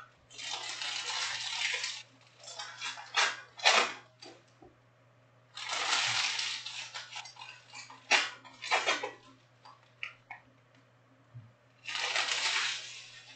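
Trading cards being handled in stacks: three stretches of cards sliding and riffling against each other, with a few sharp taps of card stacks on the table between them. A faint steady low hum runs underneath.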